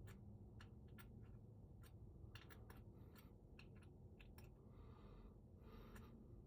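Faint scattered clicks and taps from a lock cylinder and its key being handled during rekeying, with two brief scraping sounds near the end.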